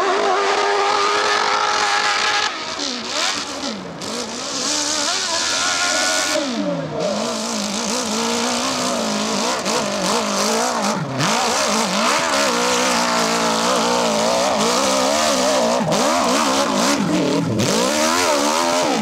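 Hill-climb dirt bike engine revving hard at full throttle, its pitch swinging up and down again and again as the rear wheel spins and grips on the steep slope.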